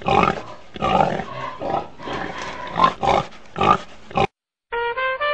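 A pig grunting and oinking in a quick, uneven run of calls that cuts off suddenly. After a brief gap, upbeat swing music starts near the end.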